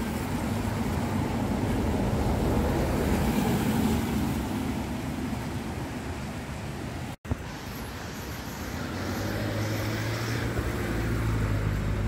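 Road traffic on a wet road: passing cars with tyre hiss that swells and fades. The sound cuts off sharply about seven seconds in, then another vehicle approaches with a low engine hum.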